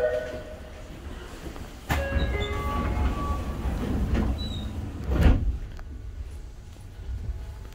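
The last notes of a Tokyu 8500 series train's door chime fade, and the car's sliding doors close with a sudden clunk about two seconds in. A heavier thump follows about five seconds in, over a low rumble inside the car.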